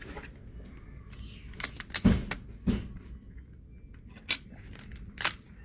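A handful of sharp clicks and knocks, about five, the loudest a pair about two seconds in: small tools and plastic laptop parts being handled while the keyboard is worked loose.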